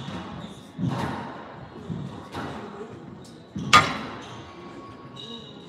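Squash rally: the ball cracking off racquets and the walls in several sharp hits a second or so apart, the loudest about two-thirds of the way in. Court shoes squeak on the hardwood floor, most clearly near the end.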